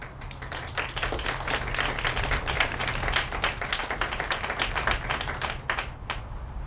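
Audience applauding. The clapping starts within the first half second and fades out about six seconds in.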